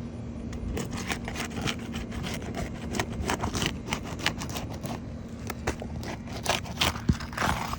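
A flat metal roofing tool being worked under asphalt shingles, scraping and crackling in quick irregular strokes as the sealant strips holding the shingles down are broken loose. A steady low hum runs underneath.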